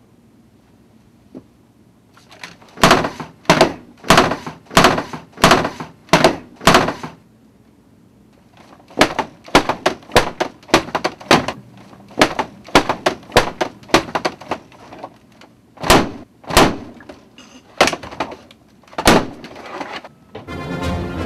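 Hard bangs of a notebook laptop being slammed and bashed on an office desk. They come in two fast runs of about two to three bangs a second, then a few spaced single bangs.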